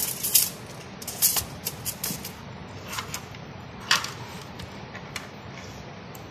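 Handling noise on a desk: a scatter of short, crisp clicks and rustles from a hand moving objects and from the camera being moved, the loudest near the start and about four seconds in.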